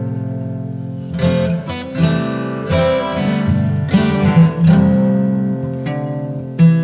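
Background music: acoustic guitar playing plucked notes and chords that ring out, a new note or chord struck about once a second.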